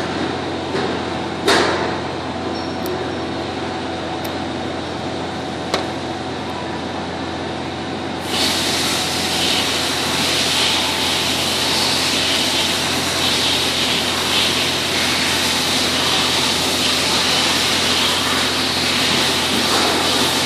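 Steady mechanical hum and hiss of background machinery, which grows louder and hissier about eight seconds in. A few light clicks of small brass valve parts being handled come in the first several seconds.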